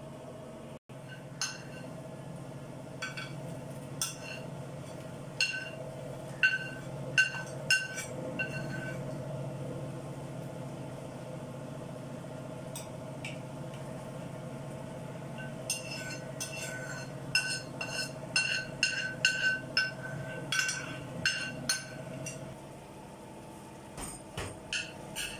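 A metal spoon clinking and scraping against an aluminium frying pan and pressure cooker, a run of sharp, short ringing clinks that comes in two busy spells, over a steady low hum.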